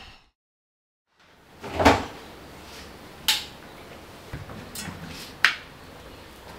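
Knocks and clicks of laundry being handled at a front-loading washing machine with its door open. The loudest knock comes about two seconds in, after a second of silence, and two sharper clicks and a few softer knocks follow.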